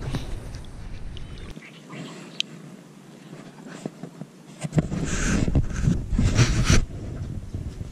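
Close rustling and rubbing of clothing and gear against the microphone, loudest in a burst of scuffs in the second half, over a low rumble of wind on the microphone at the start.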